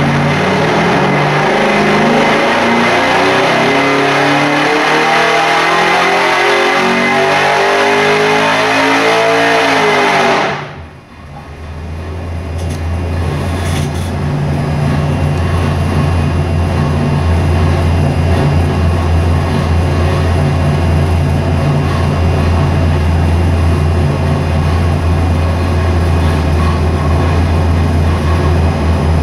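565 cubic-inch big-block Chevy V8 making a wide-open-throttle dyno pull, its pitch climbing steadily from about 2,000 rpm for roughly ten seconds. The throttle then snaps shut and the engine falls back to a steady idle.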